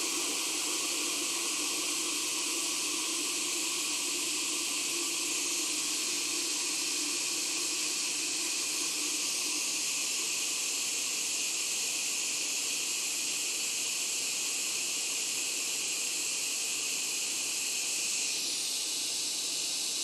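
Steady hiss of hot air from a rework heater blowing up under a circuit board to melt the solder while a replacement power connector is being soldered on.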